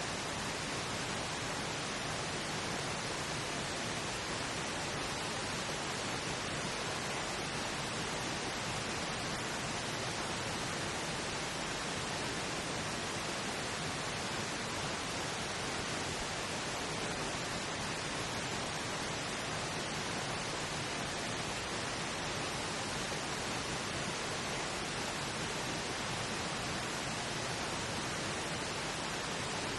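Steady pink noise, an even hiss without change, used as a masking bed for a subliminal affirmation track.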